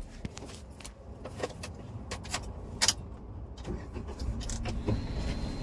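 Scattered clicks and knocks of a phone being handled and moved about inside a car cabin, over a low steady rumble.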